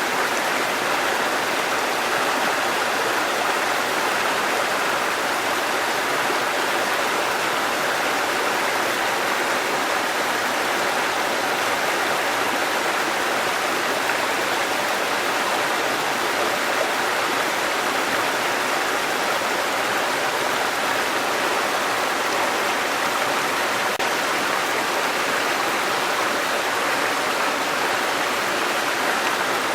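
Waterfall and rushing stream water, a steady, even rush of falling water.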